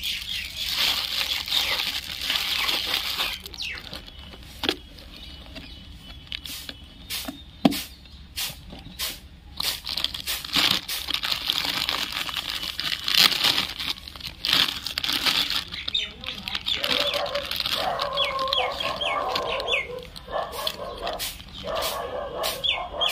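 Clear plastic bag crinkling and rustling as a toy tractor is unwrapped by hand. Near the end a bird chirps in a quick run of short falling calls.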